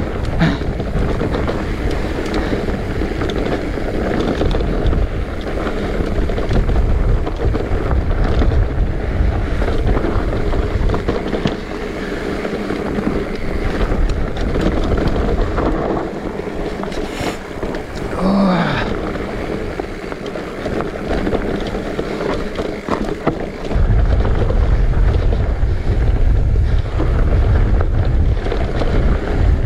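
Wind buffeting the action-camera microphone during a ride on an electric mountain bike on a dirt trail, with a steady rolling noise underneath. The buffeting gets louder about four-fifths of the way through, and there is a brief sliding squeak about two-thirds of the way in.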